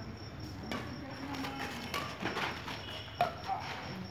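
Badminton rally: several sharp, irregularly spaced hits of rackets striking a shuttlecock.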